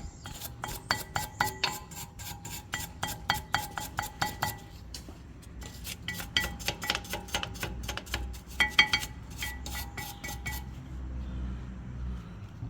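Rapid, irregular metallic clinks and taps, each ringing briefly at the same pitch, with some scraping, from steel brake parts (caliper, bracket and pads) being handled and worked on. The clinking is densest near the start and again in a quick cluster around the middle, and it stops a couple of seconds before the end.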